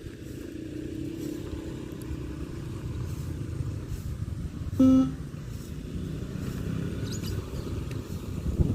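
A single short electronic beep from the beep test recording about five seconds in, marking the shuttle-run interval, over a steady low rumble.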